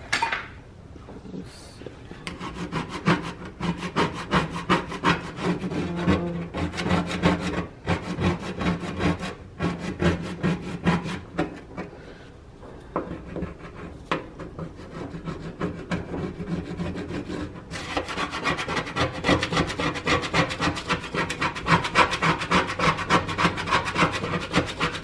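Rapid back-and-forth scrubbing and scraping on a black enamel gas-range top around a burner, working at burnt-on stains that were left to soak overnight. The strokes pause briefly about halfway through. A short knock comes at the very start.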